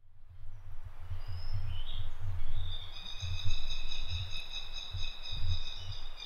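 Open jungle ambience with a bird's steady, held call starting about two and a half seconds in, over an uneven low rumble.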